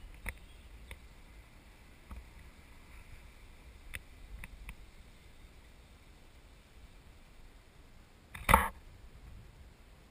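A few small clicks over a quiet background, then one short, loud splash about eight and a half seconds in as a hand scoops a baby snapping turtle up out of shallow lake water.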